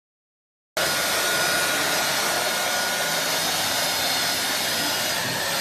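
Midea MVC-SC861 cordless stick vacuum cleaner running steadily: a loud, even rush of air with a faint high motor whine. It cuts in abruptly from dead silence under a second in.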